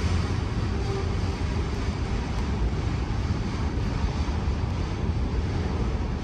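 Freight train cars rolling past, a steady rumble of wheels on rail.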